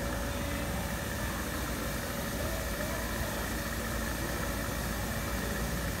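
Engine running steadily at idle: a constant low drone with a faint, steady high whine over it.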